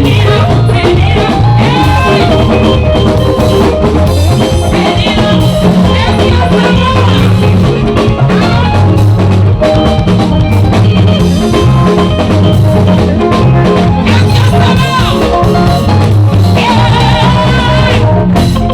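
Loud dance music with drums and a heavy bass line under a melody.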